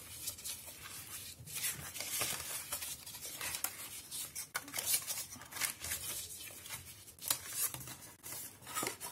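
Stiff cardstock being folded and creased by hand into a box, making irregular crackling and rubbing sounds of paper.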